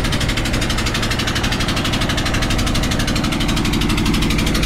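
A river boat's inboard engine running steadily with a fast, even pulsing beat, heard from up on the boat's roof, where the metal dampens the engine and makes it surprisingly soft.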